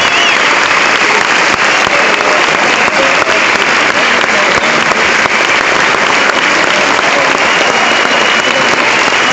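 Concert audience applauding steadily and loudly as the performers take their bows.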